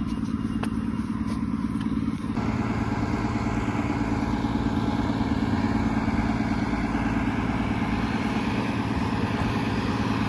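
A loud, steady motor drone with a low hum, growing a little brighter about two seconds in.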